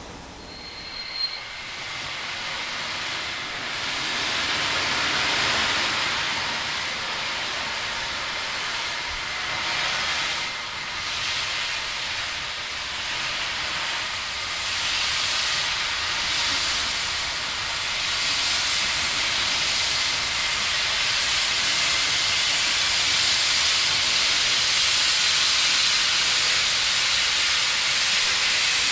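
Class 52 steam locomotive hissing steadily as steam blows from its open cylinder drain cocks, clearing condensed water while it moves slowly. The hiss grows louder over the first few seconds, with a short high-pitched tone about a second in.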